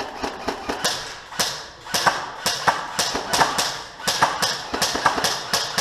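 Running footsteps on hard, gritty ground close to the microphone, a quick uneven series of thuds and scuffs at about three a second.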